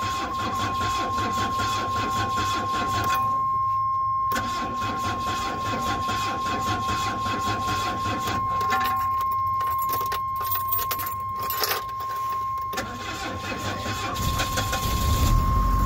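Motorhome engine cranking on its starter in repeated tries, with a short break about three seconds in. A steady high-pitched warning tone sounds throughout. The engine is slow to catch because it has been sitting for a while.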